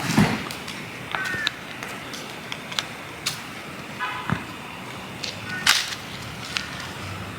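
Scattered clicks, knocks and a couple of dull thumps as party decorations and lights are taken down and packed away, with two brief high squeaks.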